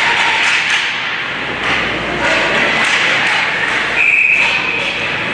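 Ice hockey game sounds echoing in an arena: skates scraping the ice, with repeated knocks of sticks, puck and boards over a haze of crowd noise. A brief high steady tone stands out about four seconds in.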